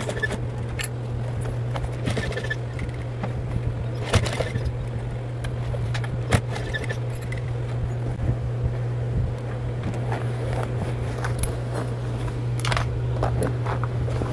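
Industrial sewing machine with a steady low motor hum, with irregular clicks and scrapes as canvas and a fabric handle are stitched and shifted under the presser foot.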